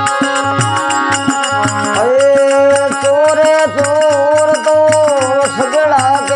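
Rajasthani folk bhajan: harmonium with a dholak beating a steady rhythm and jingling khanjari and manjira. About two seconds in, a male voice enters, holding long, wavering sung notes over the accompaniment.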